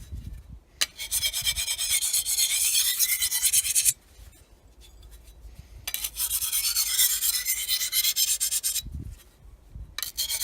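Small handheld DMT diamond sharpener, on its coarse side, rasping along the edge of an 8670M steel brush knife in quick back-and-forth strokes. There are two spells of strokes with a pause of about two seconds between them. This is a quick field touch-up of an edge chipped from cutting in dirt, bringing back a workable edge.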